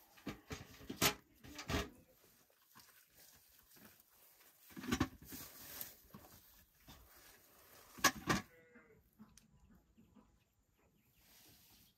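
Dry bracken fronds crackling and rustling as they are pulled aside by hand, with sharp knocks in short clusters near the start, around the middle, and about two-thirds of the way through, as apples are handled and dropped into a metal bucket.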